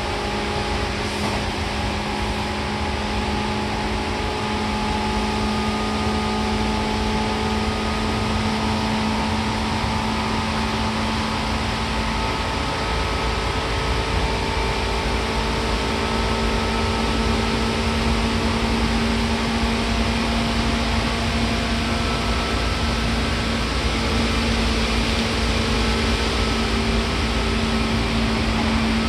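Seibu 2000 series electric train running at a steady speed: a continuous rumble of wheels on rail with a steady whine from the motors and gears held at one pitch.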